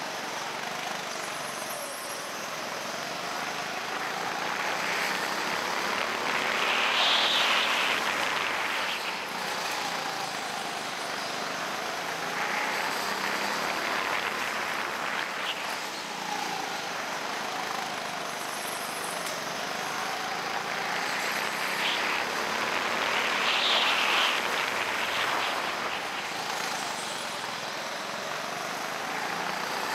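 Go-kart motor heard from the driver's seat, its pitch rising and falling again and again as the kart speeds up and slows through the corners of the track.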